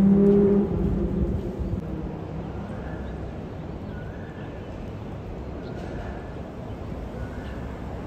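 Steady low outdoor rumble, like distant traffic, with a low steady hum that dies away within the first second. Faint short notes recur every second or so over the rumble.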